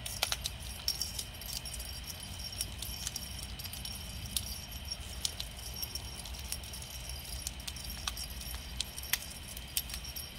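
Light jingling and small irregular clicks from a moving feathered cat toy as kittens bat at it, over steady faint high-pitched tones.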